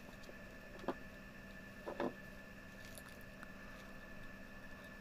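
Small plastic toy pieces handled on a wooden table: a few soft clicks, one about a second in and two close together about two seconds in, as a small pink plastic capsule is taken apart. A faint steady hum underneath.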